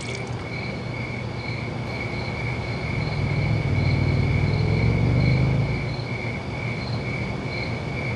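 Crickets chirping, a steady pulsed trill about twice a second, over a low rumble that swells in the middle and then eases off.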